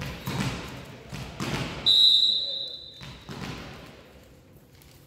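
A volleyball is bounced on the sports-hall floor, a few thuds that echo in the hall. About two seconds in, the referee's whistle blows once for about a second, the signal to serve.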